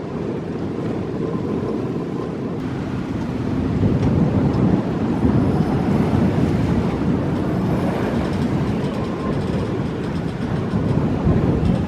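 Strong wind buffeting the microphone: a steady low rumble that grows louder about four seconds in.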